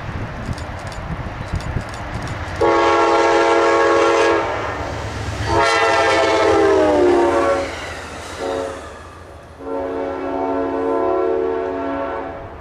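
Amtrak P42DC diesel locomotive sounding its multi-note horn in the grade-crossing pattern (long, long, short, long) as it passes. The pitch drops during the second blast as it goes by, and the last blast stays lower. A low rumble of engine and wheels runs underneath.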